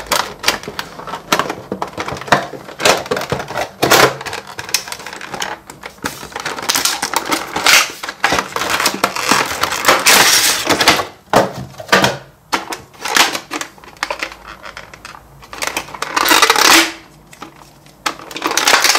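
A Play-Doh set's cardboard box and plastic packaging being opened and unpacked by hand: many sharp clicks and knocks of cardboard and small plastic pieces, with longer bursts of crinkling and tearing packaging.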